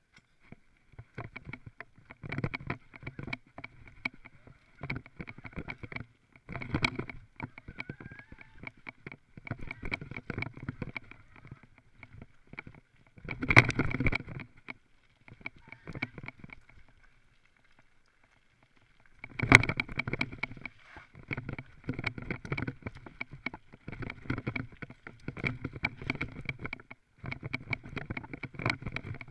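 Mountain bike rattling and clattering over a rough dirt trail: irregular knocks of chain, frame and components, with a faint steady high whine underneath. The loudest jolts come about 14 seconds in and again about 19 seconds in, with a quieter spell just before the second.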